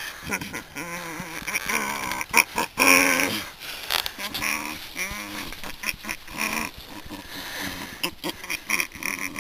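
A person's voice making wordless grunts and snorts, short pitched sounds repeated with gaps, with a few sharp clicks in between.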